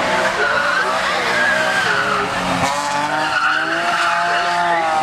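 Race-prepared BMW E30 touring car running hard at full throttle past the camera. The engine note breaks at a gear change about two and a half seconds in and then climbs again.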